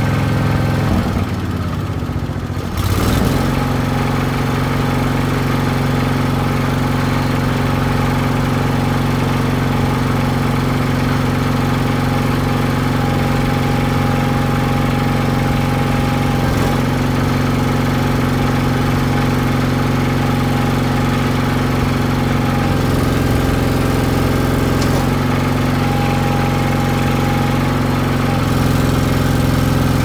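Small backhoe loader's engine running steadily while its hydraulics work the stabilizer legs and backhoe boom. The engine note drops briefly about two seconds in, then picks back up, and shifts a few times as the hydraulics take load, with a thin whine coming and going.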